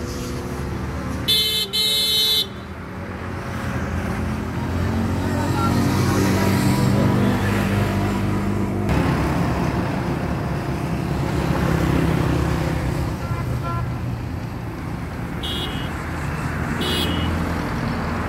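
A vehicle engine running steadily, with a horn sounding twice in quick succession about a second in, the loudest sound. Two short horn beeps come near the end.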